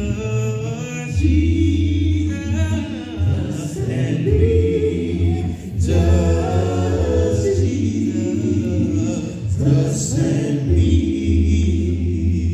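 Male gospel vocal group singing a cappella in close harmony into microphones, with a deep bass voice holding sustained low notes under a lead voice.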